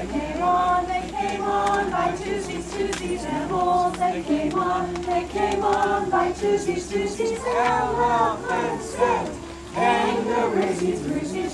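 A group of voices singing a song together in unison, with held notes following a simple melody; the singing dips briefly near the end.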